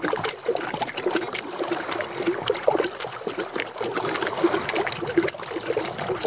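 Kayak paddle strokes on a lake: the double-bladed paddle dipping on alternate sides, with continuous trickling and dripping water and many small splashes close to the kayak.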